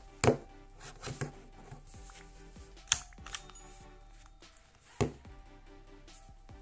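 Background music with a few sharp clicks from a Secrid Miniwallet being worked by hand: its aluminium card case's trigger fanning the cards out and the cards being pushed back in. The loudest clicks come just after the start, about three seconds in and about five seconds in.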